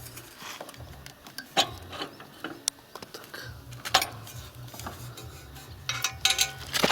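Metal engine parts and hand tools clinking and knocking during engine reassembly: scattered sharp clicks and clanks, with a cluster of clinks and a brief metallic ring near the end.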